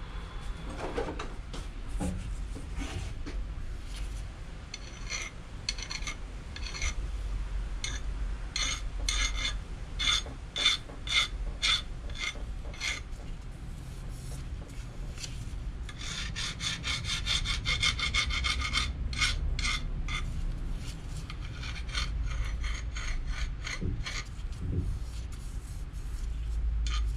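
Hand file stroking back and forth across the edge of a steel ring, taking off a burr and a couple of high spots. The strokes come in repeated runs, quickest and densest a little past the middle.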